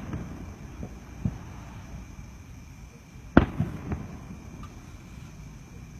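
Display fireworks going off: scattered bangs, small ones about a second in, the loudest a little over three seconds in, followed by a few smaller pops.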